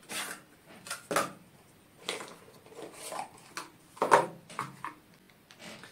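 A smartwatch's retail box being opened by hand: cardboard and packaging scraping, rustling and knocking in a string of short, irregular sounds. The loudest knock comes about four seconds in.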